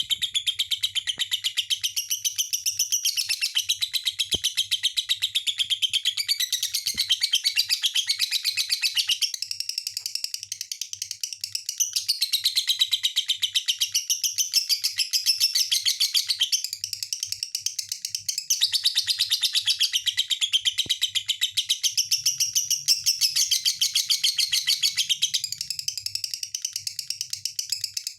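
Lovebird singing a long, continuous run of fast, shrill chirps and twitters, with a few brief pauses.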